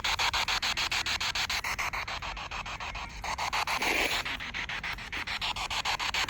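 Spirit box sweeping through radio stations: a steady hiss of static chopped about eight times a second, with a brief louder snatch about four seconds in.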